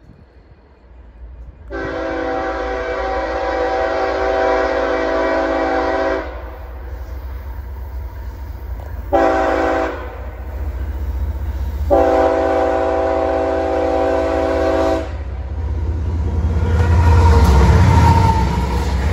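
Diesel freight locomotive's air horn sounding for a grade crossing: a long blast, a short blast and another long blast, several tones at once. A low rumble of locomotive engines and wheels then builds as the units pass close by near the end.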